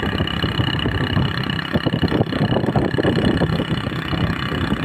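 A vehicle engine running steadily, with a constant hum and a faint steady whine over it.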